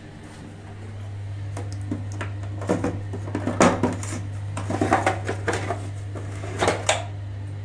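Hard objects clattering and knocking as they are handled, a run of irregular knocks over a steady low hum.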